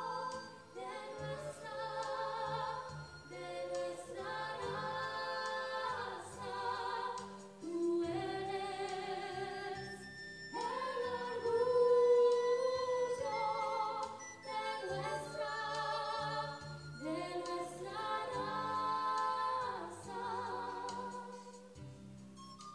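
Two female voices singing a song together over electronic keyboard chords. The music fades out shortly before the end.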